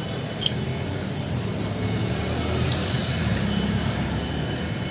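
Scooter engine being turned over on the kick-starter with its spark plug out, a low mechanical rumble with a couple of sharp clicks: a spark check at the plug.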